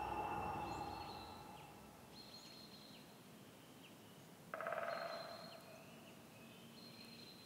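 Faint, high bird-like chirps recur over low background noise. Twice a sudden noisy swell breaks in and fades over a second or so: once at the start and again about four and a half seconds in.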